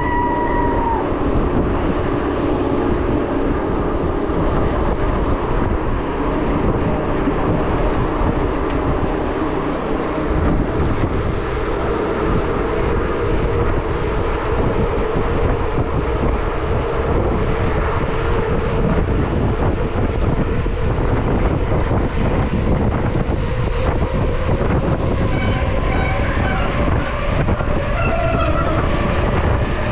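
Steady loud wind buffeting the microphone of a chest-mounted camera on a bicycle ridden at speed, with continuous low riding rumble underneath.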